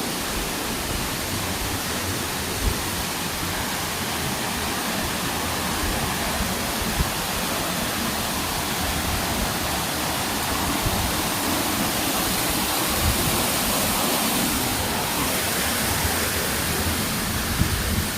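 Steady, even rush of flowing and falling water.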